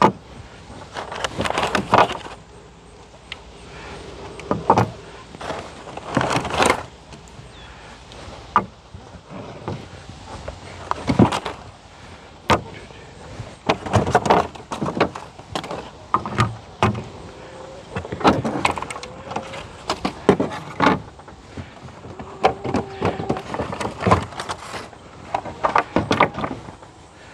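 Waxed all-plastic beehive frames being lifted out of a cardboard box and set down, with brown packing paper rustling: irregular clacks, knocks and scrapes of plastic on plastic and cardboard, mixed with crinkling paper.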